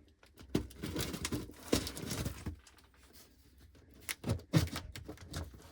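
Cardboard packaging being torn and pulled open by hand, a quick run of tearing and rustling strokes, then a lull and a few sharp knocks about four seconds in as the box is handled.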